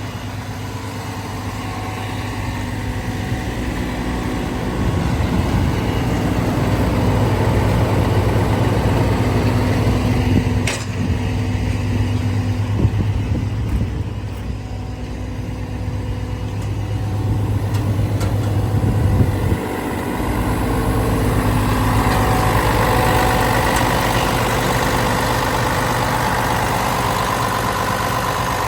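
Komatsu PC490LC-11 excavator's six-cylinder diesel engine running steadily, its loudness rising and falling; about 20 s in the sound changes suddenly and a higher whine joins the engine note.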